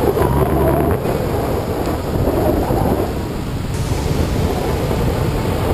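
Wind buffeting a harness-mounted camera's microphone in paraglider flight: a loud, steady rush of wind noise, heaviest in the low end.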